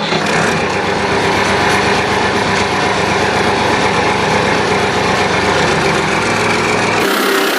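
Small electric motor of a home-made mini tractor drilling rig running steadily, with a dense mechanical buzz. Just before the end the low part drops out and the sound turns brighter.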